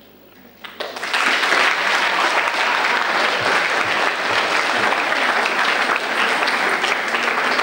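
Audience applauding: clapping breaks out about a second in and carries on dense and steady.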